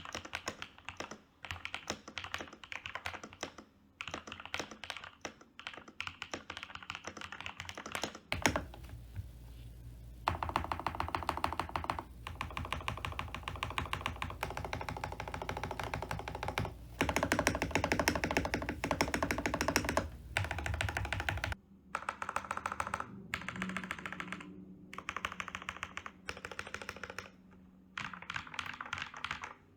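Typing on an MK870 mechanical keyboard with lubed and filmed Gateron Milky Yellow Pro linear switches, PBT keycaps, a polycarbonate plate and a PE foam mod: quick runs of keystrokes with short pauses. From about eight seconds to about twenty-one seconds a low hum sits under the typing.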